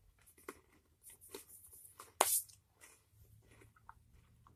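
A person chewing a sugar-and-peanut snack: irregular small crunches with one sharper crunch a little past the middle.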